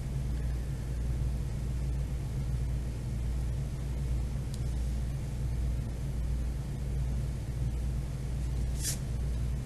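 Steady low background rumble and hum. About nine seconds in there is one short scratch of a wax crayon stroked along paper.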